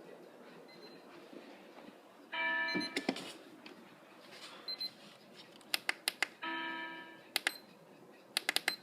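An alarm clock sounding a short chiming tone, about half a second long, twice, about four seconds apart. Clusters of sharp clicks fall between and after the tones.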